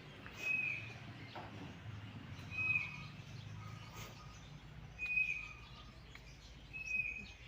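A bird chirping: four short, high, slightly falling notes about two seconds apart, over a low steady background hum.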